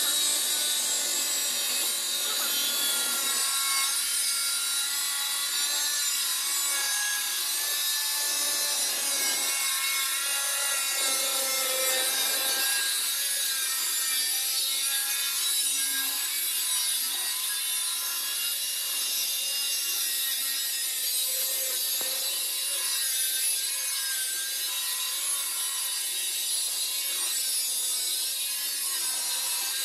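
Angle grinder with a cutting disc running steadily while cutting around the shell of an RO water storage pressure tank: a continuous high motor whine over a harsh grinding hiss.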